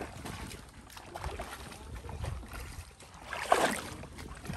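Water sloshing and splashing, with a louder splash about three and a half seconds in.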